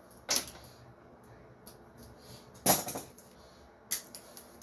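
Wire cutters snipping electrical wires: three sharp clicks, the loudest about two and a half seconds in.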